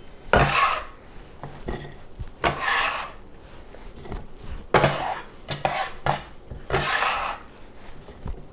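Metal bench scraper scraping chopped cauliflower across a wooden cutting board and into a ceramic bowl, in about five short scrapes with light knocks of metal against the bowl in between.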